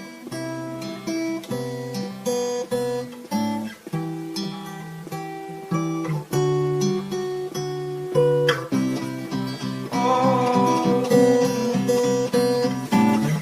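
Acoustic guitar playing an instrumental intro, single notes picked in a steady rhythm with occasional strums. From about ten seconds in, a higher wavering melody line joins above the guitar.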